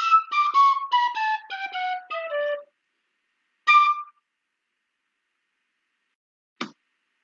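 A run of about a dozen short, flute-like whistle notes stepping down in pitch over about three seconds, then a single higher note a second later. A brief click near the end.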